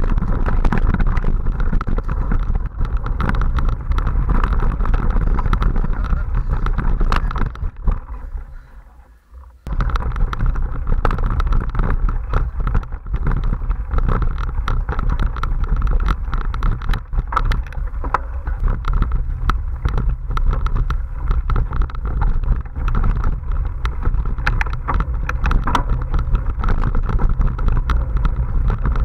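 Mountain bike ride on a dirt forest trail, heard from a camera on the rider: a steady rush of wind on the microphone over a low tyre rumble, with constant clicks and rattles from the bike jolting over bumps. About eight seconds in the sound fades away for a second or two, then cuts back in abruptly.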